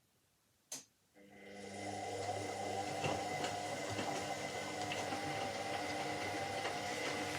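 Washing machine's motor starting up: a single click just under a second in, then the motor sound rises over about a second and settles into a steady run with a hum and whine and light ticking.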